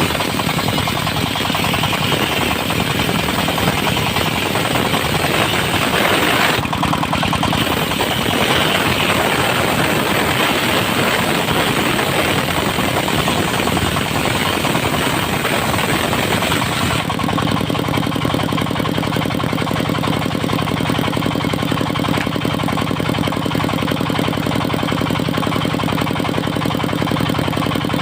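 Diesel engine of a portable circular sawmill running under load while the blade saws through dry teak, with a harsh cutting hiss over the engine. A little past halfway the cutting noise stops suddenly and the engine runs on steadily without load.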